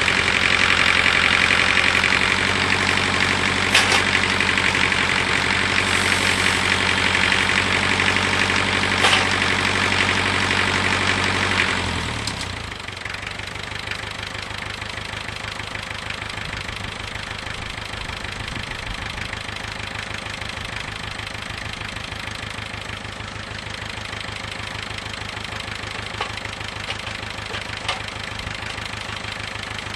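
A motor-driven machine running steadily with a few sharp clicks; about twelve seconds in it winds down and drops away, leaving a quieter steady engine-like hum.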